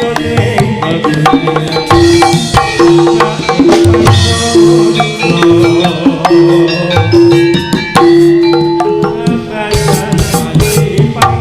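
Live Javanese turonggo (jaranan) music: hand drums beating a steady, busy rhythm under tuned struck percussion, with a single note held and repeated in short, even pulses.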